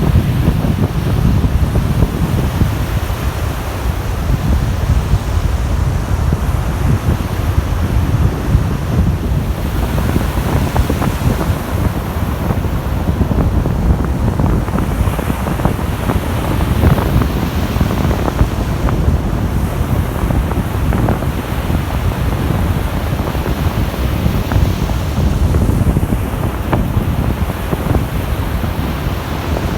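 Baltic Sea waves breaking and washing in steadily, with strong wind buffeting the microphone as a heavy low rumble.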